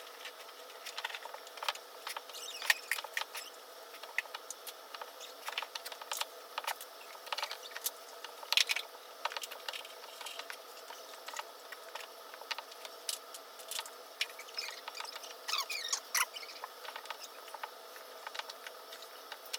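Plastic welder working polyethylene filler into a crack in a kayak hull: many small, irregular crackles and ticks as the plastic melts and the tip works it into the crack.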